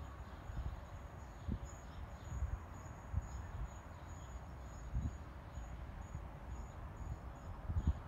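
Low, gusty wind rumble on the microphone, with a faint high-pitched chirp repeating about twice a second.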